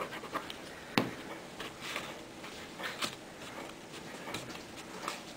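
Quiet hand-handling noises of fabric and card being pressed onto a book cover, with one sharp click about a second in and a few softer taps and rustles after.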